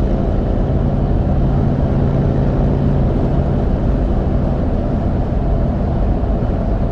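Road noise inside a Toyota Sequoia's cabin from Mickey Thompson Baja Boss all-terrain tires at speed: a steady low rumble with a humming drone that grows stronger for a few seconds in the middle.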